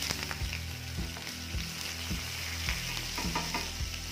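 A tempering of mustard, cumin and fenugreek seeds, dried red chillies and curry leaves sizzling in hot coconut oil in a nonstick pan, stirred with a wooden spatula, with scattered clicks and pops through the steady hiss.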